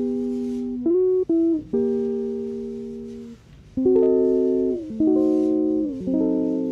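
Background music: a guitar playing slow chords, each struck, left to ring and fade, with a new chord every second or two.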